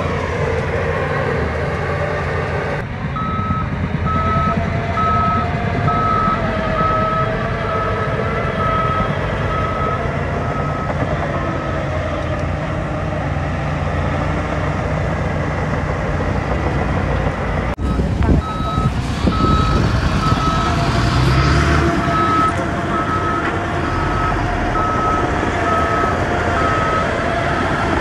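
Diesel engine of heavy earthmoving machinery running steadily, with a reversing alarm beeping at about one beep a second in two long stretches: the machine is backing up.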